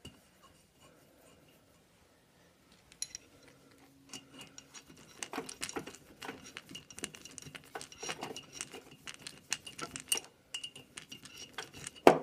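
Steel open-end spanners clicking and clinking against the nuts and stud on a Vespa PX cylinder while two nuts are locked together to unscrew the stud. The clicks start a few seconds in, come quickly and unevenly, and end with one sharper clink near the end.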